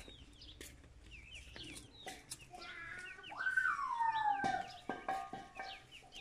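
Small birds chirping over and over, and a chicken giving one long drawn-out call about three seconds in that rises, then falls in pitch and holds. A few sharp crackles of dry sticks being handled come near the end.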